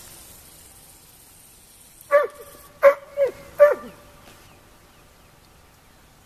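An animal barking: four short, loud barks in quick succession about two seconds in, each dropping in pitch at its end.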